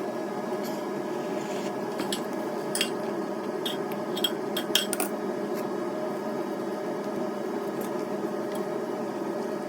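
Light metallic clicks and clinks of an oil filter wrench working on a motorcycle's oil filter, a handful of them between about two and a half and five seconds in, over a steady hum.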